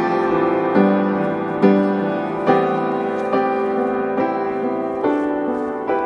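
Slow, calm piano music, with a new chord struck about every second and left to ring.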